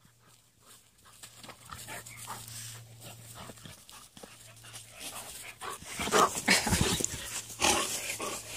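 Central Asian Shepherd puppy panting, faint at first and then loud and close from about six seconds in.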